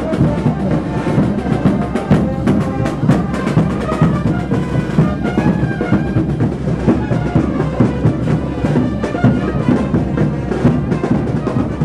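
Brass band with drums playing lively diablada dance music, trumpets carrying the tune over a steady drum beat.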